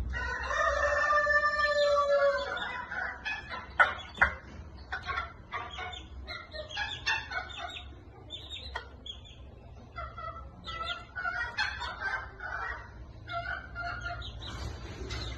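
Sebright bantam chickens: a rooster crows once for about two seconds at the start, then the birds keep up short clucks and chirps. There are two sharp knocks about four seconds in.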